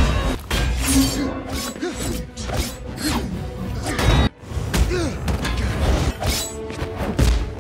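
Movie fight sound effects: a quick run of punches, kicks, whooshes and thuds, some of the blows clanging against a metal shield, over a film score.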